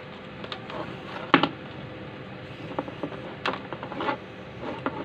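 Hands handling wires and small parts on a workbench: scattered light clicks, taps and rustles, with a sharper knock about a second and a half in and a few more clicks near the end.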